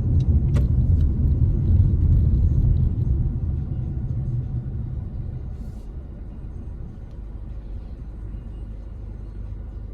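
Low rumble of a car heard from inside the cabin while driving. It eases off over a few seconds and settles at a lower steady level. There is a single click about half a second in.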